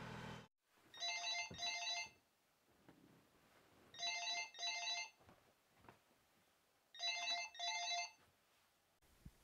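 Panasonic cordless phone ringing with an electronic double ring, heard three times about three seconds apart.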